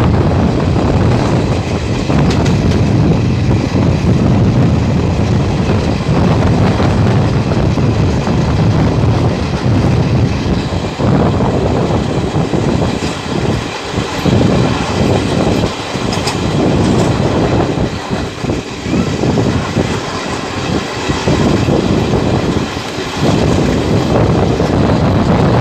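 Indian Railways passenger coach running along the track, a steady loud rumble of wheels on rails heard right beside the coach from its open doorway.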